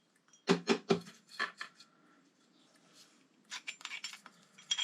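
Small metal brake caliper parts clinking and knocking as they are handled on a workbench: three quick knocks about half a second in, a couple more soon after, then a faster run of light clicks near the end.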